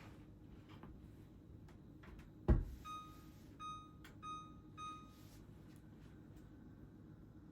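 A single thud, then an electronic appliance beeper sounding four short beeps at one pitch, evenly spaced.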